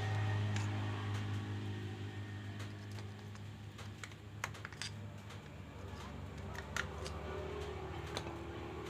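Scattered sharp clicks and light taps of small metal parts being handled while a brush cutter's gear head is worked on, four or five of them through the middle and latter part, over a steady low hum.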